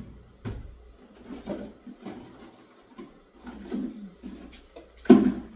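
Several separate knocks and clatters of kitchenware being moved about, with chicken sizzling in a pan underneath; the loudest knock comes near the end.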